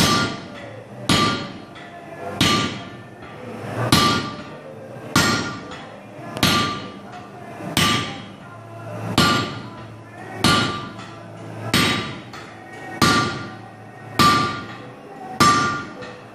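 Sledgehammer blows on a handled top tool held against a red-hot 1045 steel bar on the anvil, struck in a steady rhythm of about one blow every 1.3 seconds, each with a short metallic ring.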